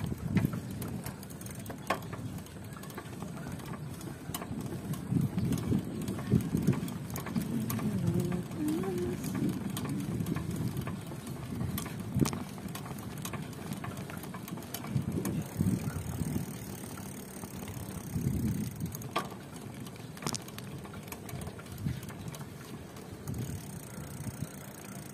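Uneven low rumble of wind and road noise while riding a bicycle, with scattered sharp clicks and rattles.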